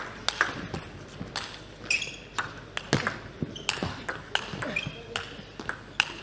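Table tennis ball struck back and forth in a long rally, a sharp click about every half second as it hits the bats and the table. Short squeaks from the players' shoes on the court floor come in between.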